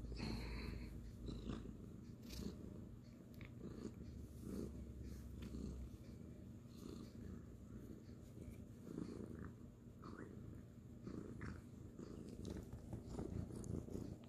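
A kitten purring steadily and softly, the purr swelling and easing about once a second with each breath, with faint rustling of a hand stroking its fur.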